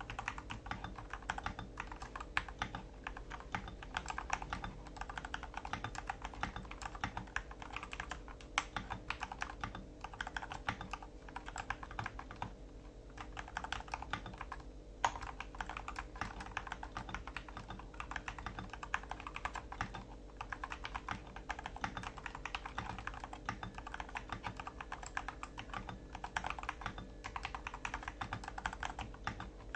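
Typing sound test on an MK870 mechanical keyboard with Gateron Cap Milky Yellow linear switches and PBT shine-through keycaps: a fast, continuous run of keystrokes, with a brief lull about twelve seconds in and one louder keystroke shortly after.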